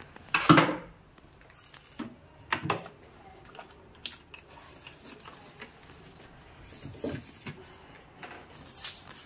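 Scattered knocks and clicks of hand work on a kitchen wall cabinet's door fittings. The loudest is a knock about half a second in, with another about two and a half seconds in.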